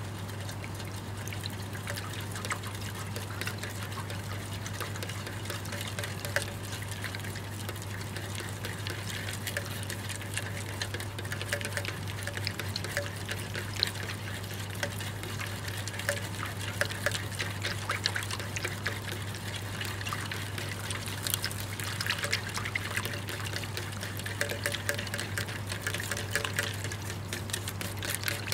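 Soap foam fizzing and crackling as many small bubbles pop: a dense run of tiny clicks that gets busier in the second half, over a steady low hum.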